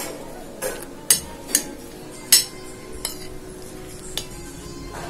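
A metal spoon clinking and scraping against a ceramic plate as cooked rice is mixed with chopped pineapple and sugar: about six sharp, uneven clinks.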